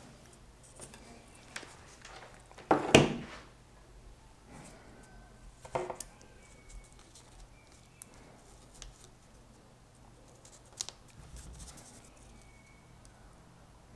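Hand tools handled on a wooden tabletop: a loud knock about three seconds in and a smaller one near six seconds, as the hot glue gun is put aside and needle-nose pliers picked up. Then light clicks and scrapes as the pliers work the metal nose strip on the mask.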